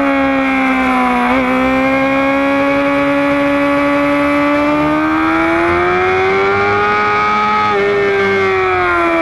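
Sport motorcycle engine heard from on board the bike, with wind rush, running at high revs. Its note dips briefly about a second and a half in, climbs slowly over several seconds as the bike accelerates, then falls near the end as the rider eases off.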